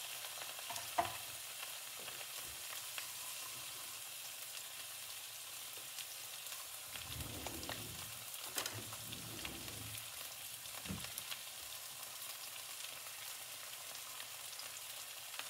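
Ribeye steaks frying on a bed of onions in an oiled pan: a steady sizzle with scattered small crackles.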